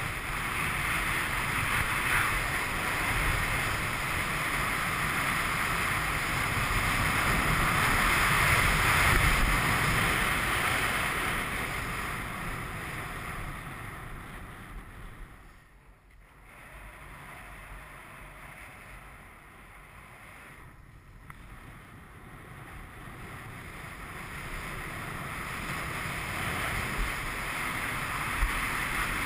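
Rushing wind on the camera's microphone mixed with skis carving on hard, cold corduroy snow, a steady rush that falls away around the middle and then builds back up.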